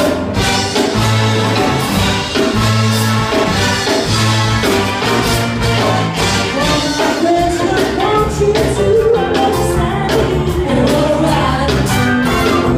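Live soul band playing an upbeat song: horns (trumpet and saxophones), electric guitars, bass, keyboard and drums, with a woman singing lead.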